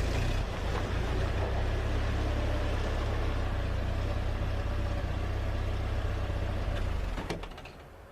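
A vehicle engine running steadily, a low hum, that dies away about seven and a half seconds in, with a couple of sharp clicks just before it fades.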